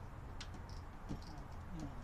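A few light clicks and taps from hands working at an outdoor light fixture, over a low steady hum.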